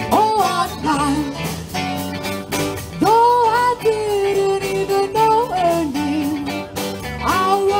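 Live band playing a song: a woman sings lead over electric guitars, keyboard and a drum kit. She holds a long sung note from about three seconds in, and starts a new phrase near the end.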